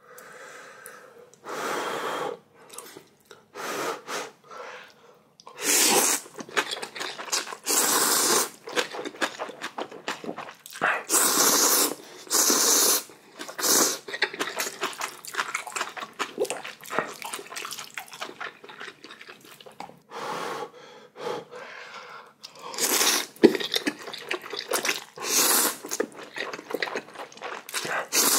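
A person slurping ramyeon noodles in repeated noisy pulls about a second long, with chewing and smacking between the slurps.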